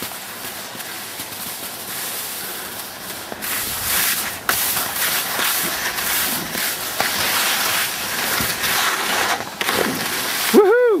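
Skis sliding and scraping over soft, wet snow on a downhill run, a steady hiss that gets louder about three and a half seconds in. A short voice call with a rising-and-falling pitch comes near the end.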